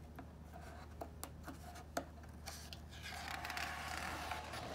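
Faint taps and handling of a picture book's paper pages, then a soft, longer rustle of paper in the second half as a page is turned.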